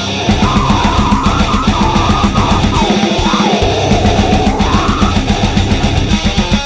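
Heavy metal recording: distorted electric guitars over rapid, evenly spaced drum beats, with a high line bending up and down above them. The full band comes in hard right at the start after a held chord.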